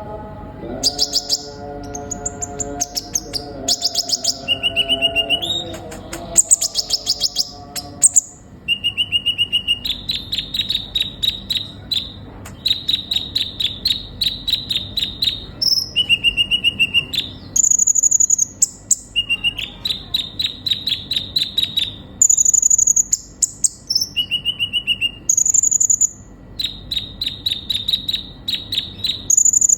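Kolibri ninja sunbird singing in fast, repeated phrases: rapid trills of ticking notes, short lower whistles and thin high notes in turn, over and over.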